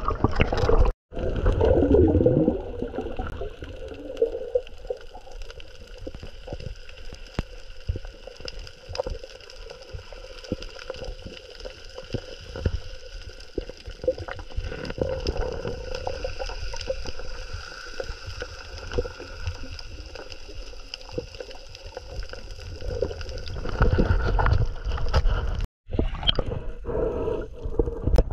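Underwater sound from a camera held in the sea: a steady wash of water with dense fine crackling and clicking, and louder churning and sloshing of water at the start and again near the end. The sound cuts out briefly about a second in and again near the end.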